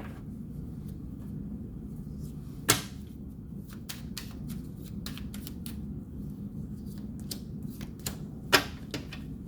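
Light clicks and taps of tarot cards being handled and laid down, with two louder snaps, about three seconds in and again near the end, over a steady low hum.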